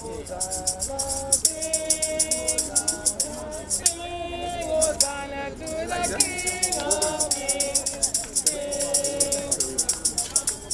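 Group of voices singing a hymn, accompanied by a shaker keeping a fast, even rhythm that drops out briefly about four seconds in.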